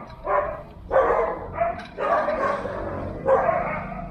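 A dog barking repeatedly, with several loud barks about a second apart.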